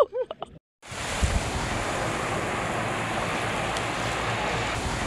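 Steady rush of wind on the microphone and sea water around a boat, starting abruptly just under a second in, after a brief shouted voice is cut off.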